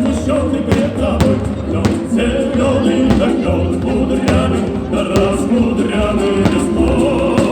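Music with choral singing over a dense instrumental backing.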